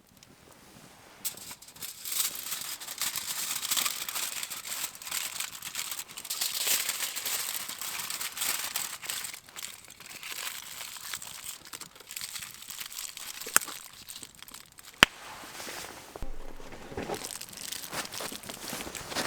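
Crinkling and rustling of something being handled, like plastic packaging or foil, in irregular spells with many small crackles and two sharp clicks around the middle.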